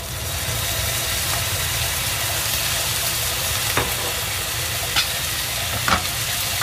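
Minced meat frying in a very hot non-stick pan, sizzling harder as soy sauce is poured in. Near the end come a few sharp clicks as a wooden spatula stirs the meat.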